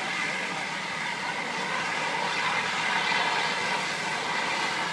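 Fire trucks' engines running steadily to drive their pumps: a constant drone and hiss with faint steady tones in it.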